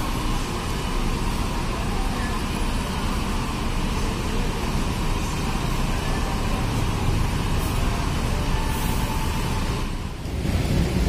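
Rear-mounted diesel engine of a Mercedes-Benz OH-1626 coach idling close by, a steady low rumble, with a short hiss of air about nine seconds in.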